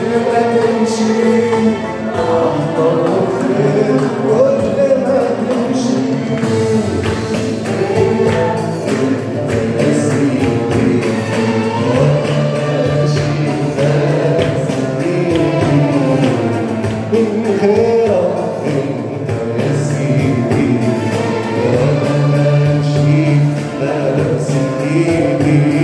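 Egyptian Arabic Christian hymn sung live: a man singing into a microphone over steady instrumental accompaniment, with the congregation singing along.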